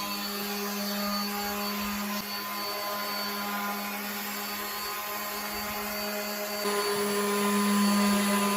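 Electric motor of a power tool or vacuum running steadily with a strong hum over a hiss, growing a little louder and brighter about two-thirds of the way through.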